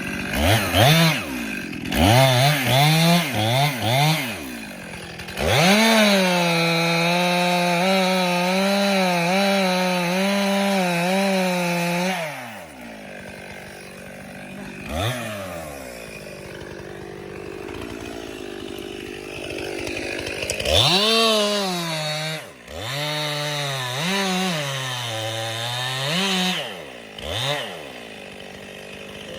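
Chainsaw cutting a tree. The engine gives several quick revs, is held at high speed for several seconds with a slightly wavering pitch, drops back to idle about halfway through, then revs up under load again for a few seconds near the end.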